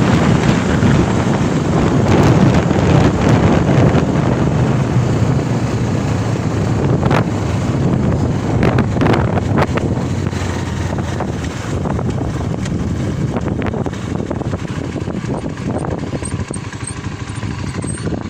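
Spark SP200R-28 motorcycle running flat out at about 115–120 km/h, with wind rushing and buffeting over the microphone. The noise eases off gradually over the second half as the bike slows.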